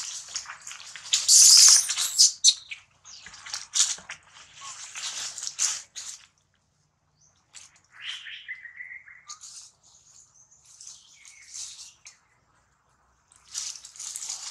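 Dry fallen leaves rustling and crunching in irregular bursts as monkeys move over leaf litter, loudest about a second and a half in. About eight seconds in there is one short high call that falls in pitch and then holds.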